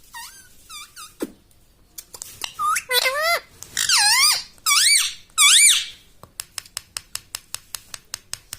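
Ring-necked parakeet making a few short squeaky calls, then a series of loud screeching calls that rise and fall in pitch. Near the end comes a fast, even run of sharp clicks, about nine a second.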